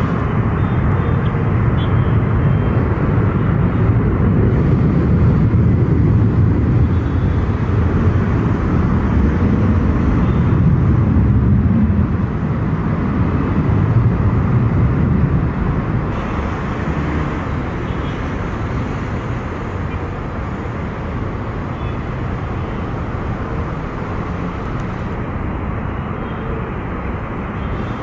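Ilyushin Il-76's four turbofan engines at takeoff power, a loud, steady, deep rumble that eases off somewhat in the second half.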